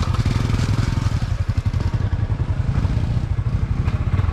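A small engine running steadily, heard as a fast, even low pulsing.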